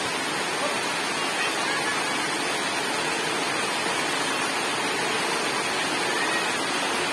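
Heavy tropical rain pouring down, a steady unbroken hiss of downpour.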